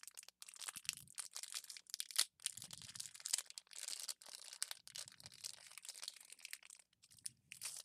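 A foil Pokémon TCG Vivid Voltage booster pack being crinkled and torn open by hand, a dense run of crackling rustles.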